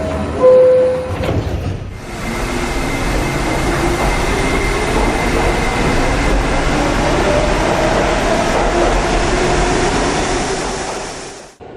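Subway train running: a steady rumble with a faint whine from about two seconds in, cutting off suddenly near the end. A short steady tone sounds about half a second in.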